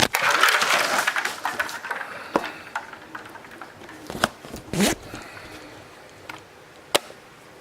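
Feet in a tub of ice water: a sudden splash, then about two seconds of crackling, clinking ice, then a few separate knocks.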